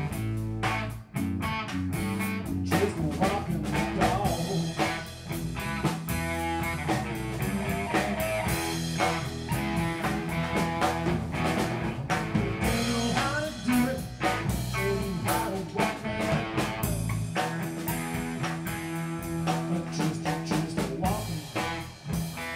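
Live band playing an instrumental passage on drum kit and electric guitar, with no vocals.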